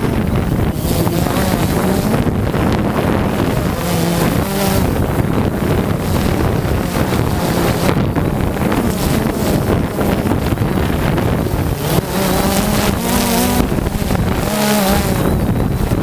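Quadcopter drone's electric motors and propellers buzzing as it lifts off and hovers, heard through its onboard camera, with strong wind buffeting the microphone. The motor pitch shifts up and down as the drone holds position in the gusts.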